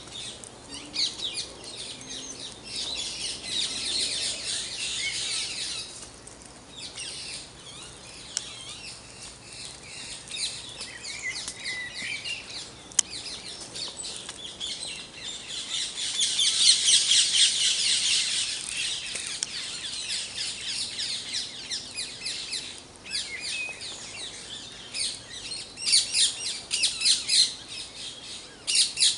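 Dawn chorus of songbirds in park woodland: many birds singing and chirping at once in a dense, overlapping mix of high trills and calls. It swells loudest about halfway through, and a run of quick repeated notes comes near the end.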